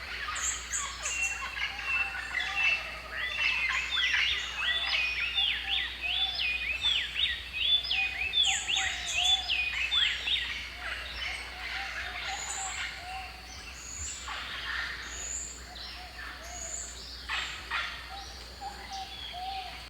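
Several birds singing and calling at once: dense, rapidly repeated chirps and whistles at a few different pitches, busiest in the first half and thinning out later, over a faint steady low hum.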